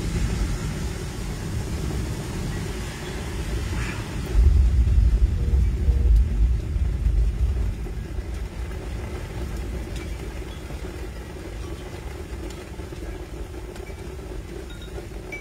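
Low, steady storm rumble, swelling louder for about three seconds starting around four seconds in.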